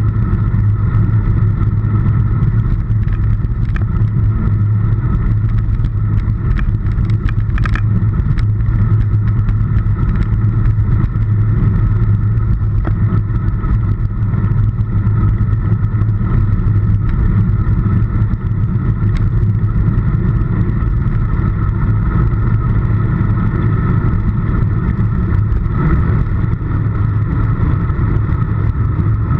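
Wind rushing over a handlebar-mounted camera's microphone on a road bike riding at speed, a loud, steady low rumble mixed with tyre and road noise.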